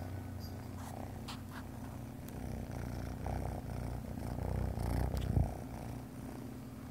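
A kitten purring close to the microphone, a steady low rumble that grows louder about five seconds in, with a brief knock just after.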